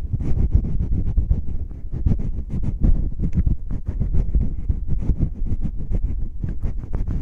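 Fingertips rubbing, scratching and bumping roughly over the ears of a binaural microphone: a fast, irregular run of scratchy strokes, several a second, with a heavy low rumble.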